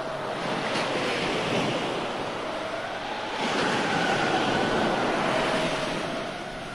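Recorded surf-like rushing sound effect, surging up about half a second in and again after about three seconds, with faint wavering tones over it.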